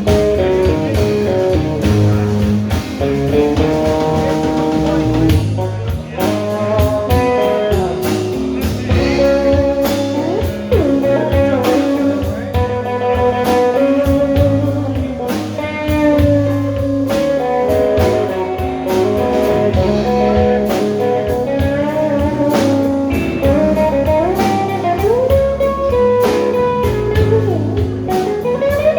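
Slow electric blues played by a band: a lead electric guitar solos with bent notes over bass and a steady drum beat.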